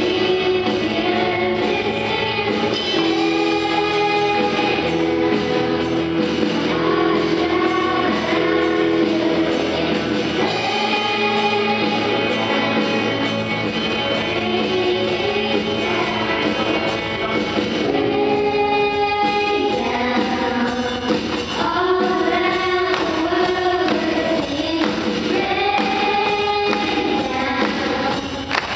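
A group of voices singing a hymn together, with band accompaniment that includes an electronic drum kit keeping time.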